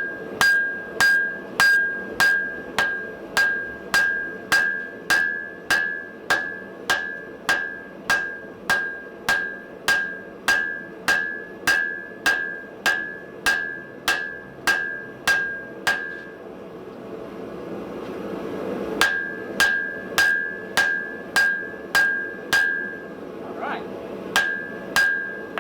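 Blacksmith's hand hammer striking hot metal on an anvil, a steady rhythm of about two blows a second with a bright ring on each blow. The blows stop for a few seconds partway through, over a steady background hiss, then resume in a shorter run.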